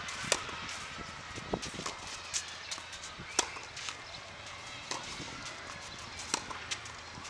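Tennis rally on a clay court: sharp pops of racket strings striking the ball about every one and a half seconds, the loudest ones from the near player, with fainter ticks of bounces and footsteps between.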